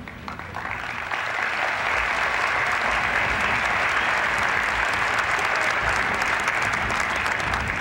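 A large crowd applauding, building up over the first second and then holding steady.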